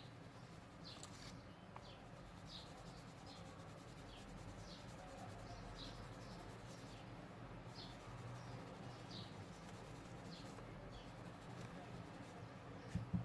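Faint, repeated short high chirps, about one a second, from a small bird in the background, over a steady low hum. Two brief soft thumps near the end.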